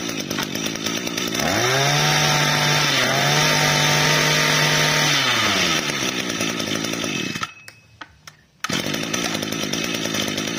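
Echo 22 cc two-stroke brush-cutter engine idling, then revved up with the throttle for about four seconds and let back down to idle. The sound breaks off for about a second near the middle and the idle picks up again.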